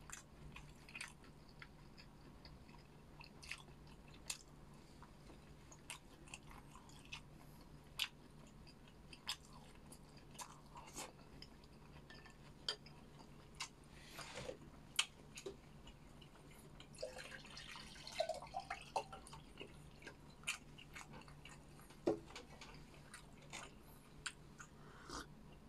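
Close-up chewing and biting of food: irregular wet mouth clicks and soft crunches, with a busier stretch of chewing near two-thirds of the way through, over a faint steady low hum.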